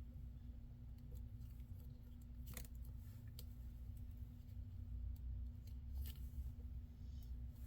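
Scissors snipping tape: a few sharp clicks, about two and a half, three and a half and six seconds in, over a steady low hum.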